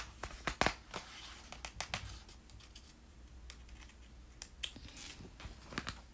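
Pages of a picture book being turned and handled: paper rustling with a scatter of light taps and clicks, thickest in the first two seconds and again near the end.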